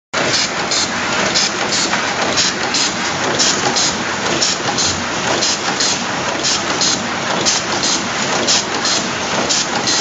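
Automatic three-sided two-wire crimping machine (WPM 038F) running, with a steady dense mechanical noise and short high bursts repeating about twice a second as it cycles.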